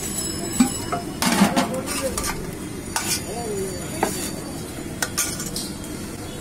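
A metal ladle clinks and scrapes in a large aluminium pot of potato curry while the curry is scooped into a plastic bag, with a few sharp knocks and some crinkling of the bag.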